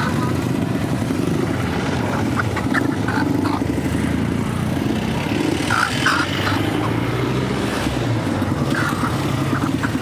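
Steady low rumble of motor vehicles running, with motorcycle-like engine noise.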